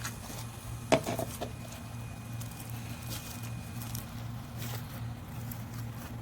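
Crunchy slime being squeezed and stretched, giving scattered clicks and crackles with one sharp click about a second in, over a steady low hum.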